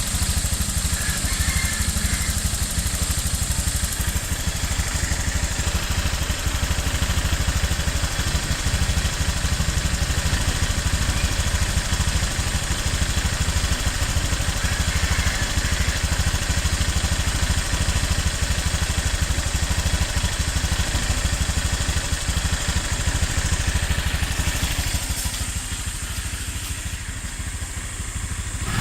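Honda Click 150i scooter's single-cylinder engine idling steadily with a ticking sound on a new bike at about 300 km, a little quieter near the end.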